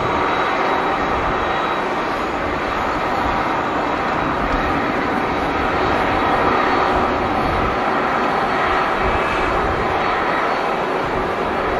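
Air Canada Boeing 777-200LR's GE90 turbofan engines running steadily as the airliner taxis, a continuous jet rumble with a faint steady whine over it.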